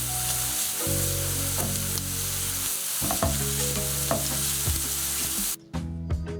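Food sizzling as it fries in hot oil in a pan, with a few knocks of a utensil stirring it. The sizzle cuts off suddenly near the end, followed by light clicks.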